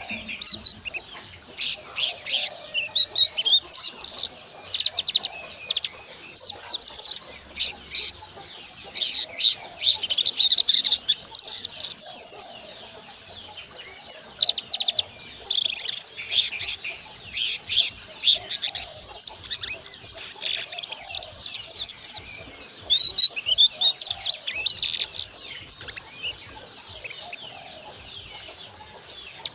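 Young brown-throated sunbird (sogon) singing in a cage: fast, high twittering phrases of a second or two, repeated with short pauses and stopping near the end. It is a young bird still learning its song.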